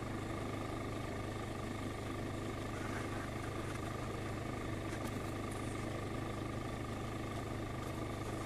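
Steady low hum of a running vehicle engine, with a faint steady whine above it.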